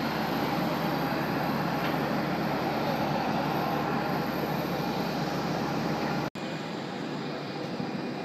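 Steady mechanical drone of airport apron noise, with faint steady whining tones in it. About six seconds in it cuts off abruptly, and a similar, somewhat quieter background follows.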